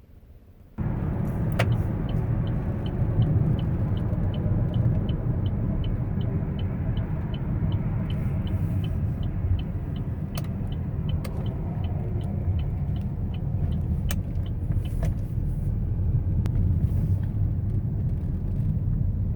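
Buick on the move with a steady low road rumble, over which a light, high tick repeats about three times a second and fades out near the end, with a few sharp creaks or clicks in between. These are the creaking and woodpecker-like noises that appeared after a tire rotation.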